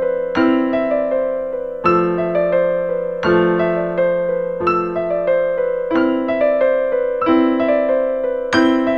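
Background piano music: gentle broken chords, with a new chord struck about every second and a half and quicker notes rippling between.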